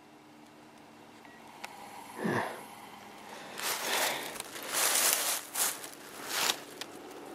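A short sound falling steeply in pitch about two seconds in, then several loud rushes of rustling and handling noise as a hand-held camera is moved through woodland brush.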